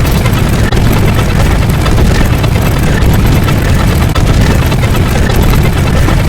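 Extremely loud, heavily distorted wall of noise with a deep rumble, like many explosion sound effects layered together, with no clear pitch or rhythm.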